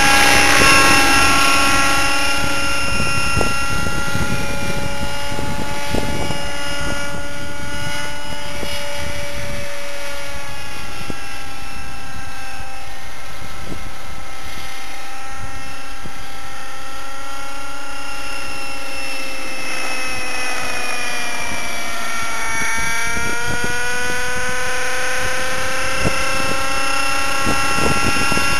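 O.S. 50 Hyper two-stroke nitro engine with Hatori muffler running in a T-Rex 600 Nitro Pro RC helicopter in flight: a steady, loud, high engine note with rotor noise. The pitch sinks about twenty seconds in and climbs back a couple of seconds later.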